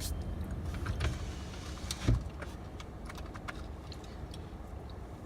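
Low steady rumble of a car's interior with scattered small clicks and taps, and a single thump about two seconds in.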